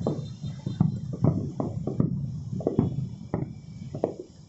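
Aerial firework shells bursting in quick succession, a rapid string of low booms about three a second, each trailing off in a short rumble.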